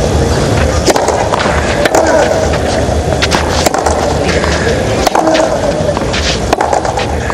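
Tennis rally on a clay court: sharp racket-on-ball strikes every second or so, over a steady crowd murmur.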